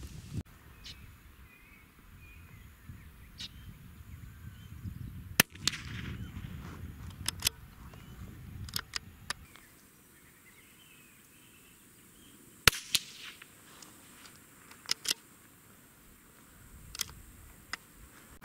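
Two shots from a CZ 455 bolt-action .22LR rifle firing CCI Standard Velocity rounds, about seven seconds apart. Each is a sharp report followed a fraction of a second later by a fainter crack, with lighter clicks in between.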